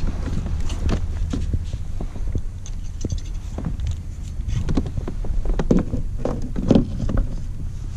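A netted redfish flopping in a landing net on a plastic kayak: irregular knocks, slaps and splashy patter as net and fish come aboard, over a steady low rumble.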